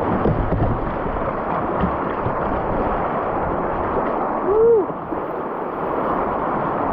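Whitewater rapids rushing and splashing around a kayak's bow. A brief shout rises and falls about two-thirds of the way through.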